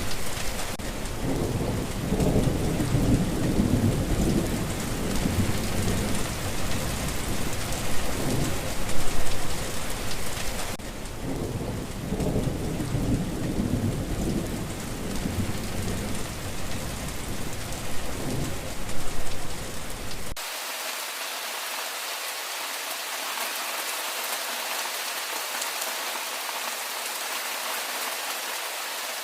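Steady heavy rain falling on a street, with rolling thunder rumbling underneath. About two-thirds of the way through the thunder cuts off abruptly, leaving only the even hiss of the rain.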